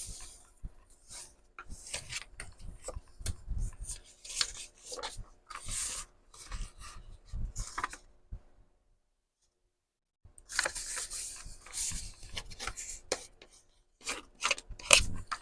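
Sheets of paper being handled and shuffled, in irregular rustling, sliding and scraping strokes. The sound cuts out completely for about a second and a half a little past the middle, then the paper handling resumes.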